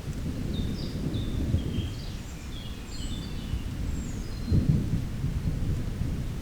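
Low rumble of thunder in a rainstorm, swelling about four and a half seconds in, with a small bird chirping a series of short high notes over it.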